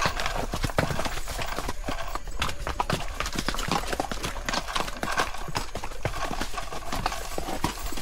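Hooves of several ridden horses clopping on a stony trail: a steady, uneven run of hard knocks, several a second.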